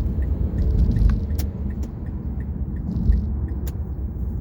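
Road and tyre noise inside a 2012 Mazda 6 sedan driving on new Cooper Road Control Touring all-season tyres: a steady low rumble. A faint regular ticking runs along at about three a second, with a few sharp clicks.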